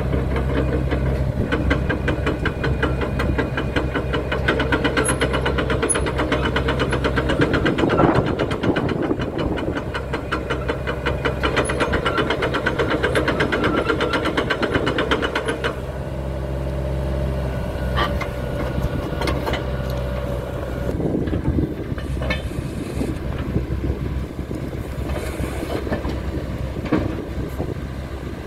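Hitachi Zaxis ZX75US compact excavator's diesel engine running steadily, its note changing about a quarter of the way in and again about halfway through as the machine is worked. A few sharp knocks come in the second half.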